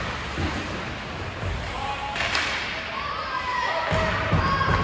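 Ice hockey play in an echoing rink: several dull thuds and one sharp crack about two seconds in, with faint voices calling in the background.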